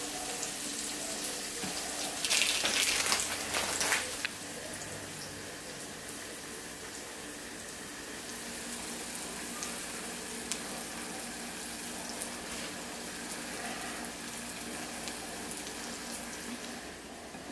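Turkey burger patty frying in a skillet: a steady sizzling hiss, with a louder rush of sizzle for about two seconds near the start.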